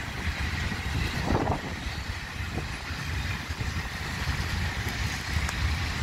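Grain hopper wagons rolling past on the track: a steady rumble of wheels on rail, with a brief louder sound about a second and a half in.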